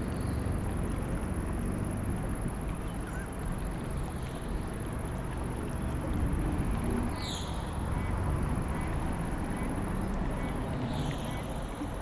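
Steady low outdoor rumble with a few short, high bird calls, two of them clearer, about seven and eleven seconds in.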